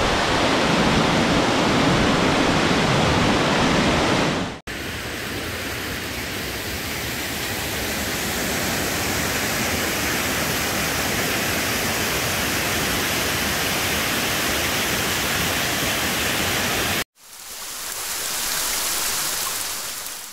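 Rain-swollen waterfall with muddy floodwater rushing down over rocks, a steady loud rush of water. The sound changes abruptly twice: after a few seconds it turns thinner and higher, and near the end it fades in and out.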